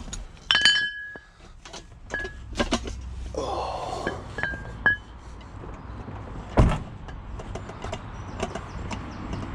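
Metal pots and pans knocked and clinked together as they are handled, several strikes ringing with a clear metallic tone, and one heavier thump about two-thirds of the way through.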